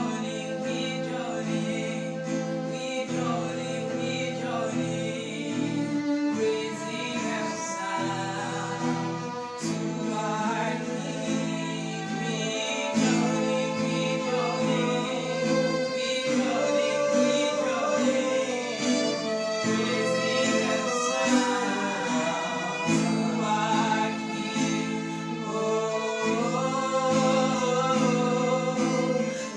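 Gospel worship music: a woman singing over guitar and violin accompaniment.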